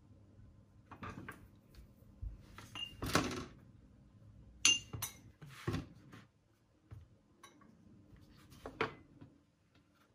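Metal fork pressing and tapping on a wooden cutting board while crimping the edges of a pastry patty shut: scattered knocks and clicks, a couple of them about five seconds in with a brief metallic ring.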